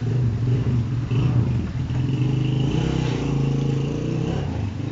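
A motor vehicle engine running with a low hum that comes in suddenly and fades out near the end.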